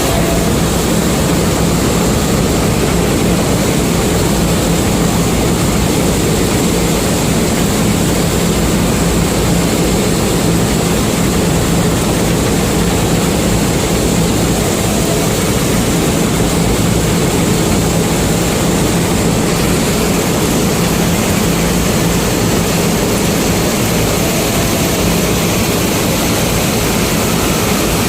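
Combine harvester engine running steadily, a constant heavy drone with a steady low hum.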